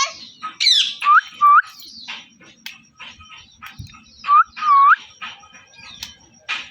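Pet parrot chirping and whistling: a run of short, scratchy chirps with four loud whistled notes that dip and then sweep upward, two about a second in and two more around four to five seconds in.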